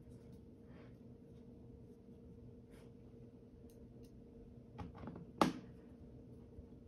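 Screwdriver working the screws of a laptop's metal bottom panel: faint small scratching as screws are turned, then two sharp clicks about five seconds in, the second louder, as the screwdriver tip strikes and seats on a screw.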